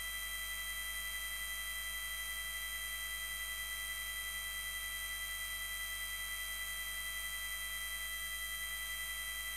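Electric quorum bell ringing continuously as a steady buzzing ring with several fixed tones over a low hum, summoning members to the chamber for a quorum count.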